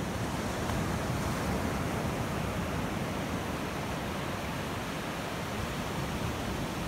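Ocean surf breaking and washing in on a beach: a steady, even rushing of water.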